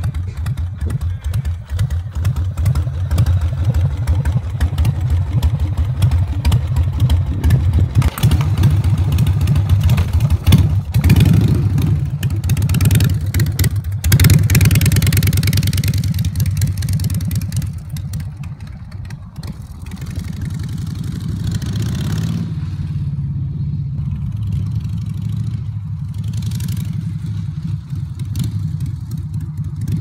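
Custom Harley-Davidson V-twin motorcycle engine running, with louder revving bursts through the middle, then running more steadily and a little quieter as the bike rides along.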